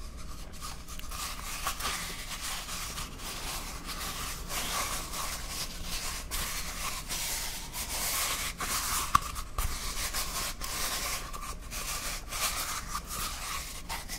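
Hands rubbing and scratching a small tan cylinder close to a pair of microphones: a steady scratchy rustle with frequent small ticks, and one sharper tap about nine seconds in.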